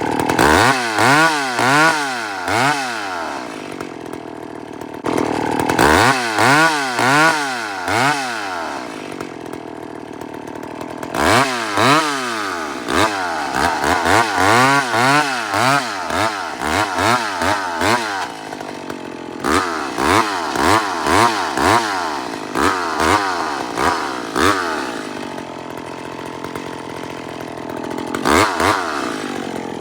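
Chainsaw running, with repeated runs of rhythmic pulses and sharp knocks about two a second, separated by short steadier stretches.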